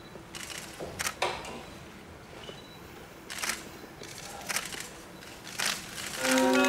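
A few scattered faint clicks and knocks. Then, about six seconds in, a viola starts a bowed note, held steadily and clearly louder than anything before it.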